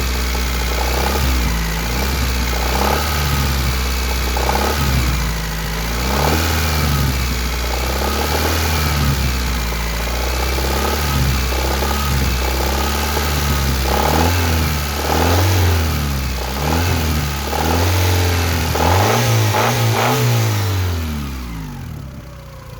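1991 Honda Accord's F22A1 2.2-litre four-cylinder engine running and being revved up and down again and again, with a persistent knocking noise that the owner places at the top of the engine around cylinders 3 and 4. Valve lash has been checked and is in spec, and the owner wonders about piston slap or a connecting-rod bearing. Near the end the revs fall and the sound dies away.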